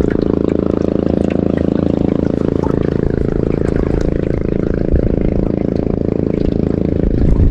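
Boat engine running steadily, a low even hum that holds one pitch throughout.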